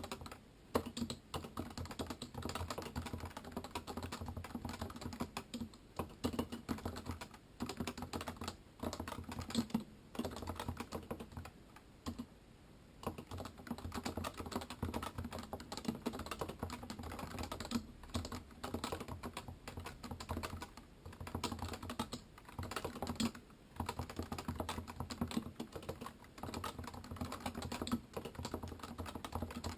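Typing on a Topre Realforce 86U keyboard with electrostatic capacitive keys: a steady run of soft, muted keystrokes, broken by a few short pauses.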